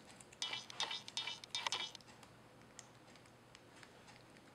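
Fingers picking at and peeling the yellow adhesive tape over a laptop's LCD cable connector: about a second and a half of crinkly scratching, then a few faint ticks.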